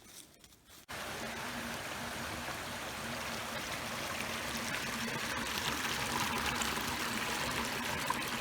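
A small stream running steadily, starting abruptly about a second in.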